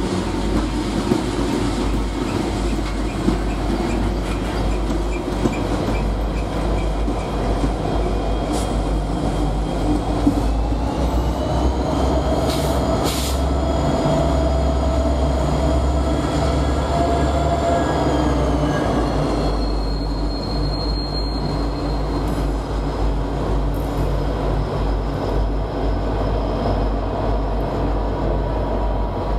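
Norfolk Southern freight train rolling through a tight curve: a steady low rumble of wheels on rail with high wheel squeal. Partway through, a set of tones rises in pitch, holds, then falls away.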